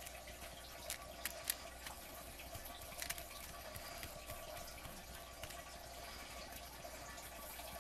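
Faint wet brushing of gel medium over torn newsprint on a chipboard tag, over a steady low hiss, with a few light taps about a second in and again about three seconds in.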